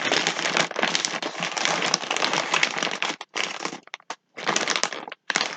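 Plastic toy packaging crinkling and rustling as it is handled, continuous at first and then in short bursts with brief pauses in the second half.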